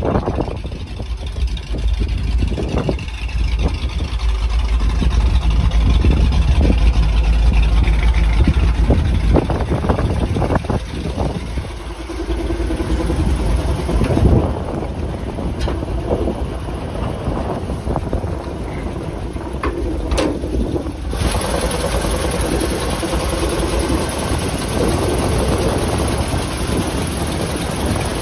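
The truck's 391 cubic-inch Ford gasoline V8 engine idling steadily. Wind rumbles on the microphone, heaviest in the first several seconds.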